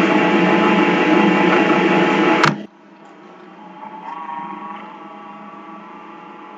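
Countertop blender motor running with a steady whir, cutting off abruptly about two and a half seconds in; a faint steady hum remains.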